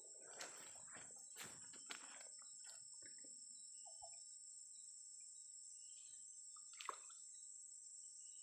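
Near silence: a steady high-pitched insect drone, with a few faint clicks and rustles.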